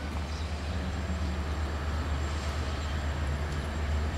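Diesel engine of a Romanian class 60 (LDE 2100) diesel-electric locomotive running during shunting, a steady low rumble.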